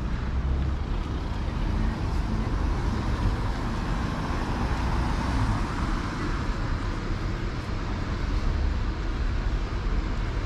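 City street traffic noise: a car drives past close by, its tyre and engine noise swelling and fading around the middle, over a steady low rumble.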